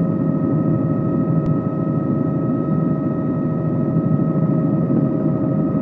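Helicopter turbine and rotor noise heard from inside the cabin: a steady, dense rumble with a constant whine over it.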